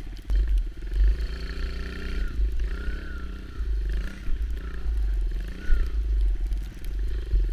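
Kawasaki KLX110 dirt bike's small single-cylinder four-stroke engine running under way, its pitch rising and falling with the throttle, with wind rumbling on the microphone.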